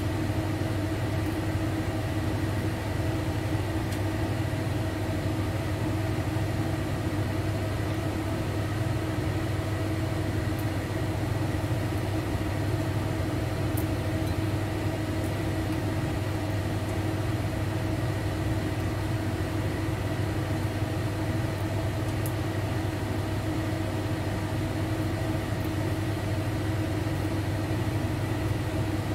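Kitchen range hood (smoke extractor fan) running with a steady, noisy hum: a low drone with a few steady tones above it.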